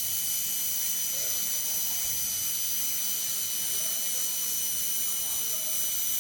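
Handheld laser welding machine running: a steady hiss with several constant high-pitched whines over it.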